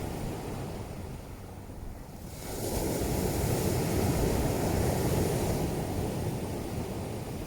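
Ocean surf: the wash of one wave ebbs, then the next breaks about two and a half seconds in and swells into a steady rush before slowly fading.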